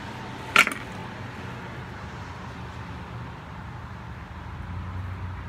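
A single sharp clink about half a second in, like a hard utensil striking a dish, over a steady low background hum.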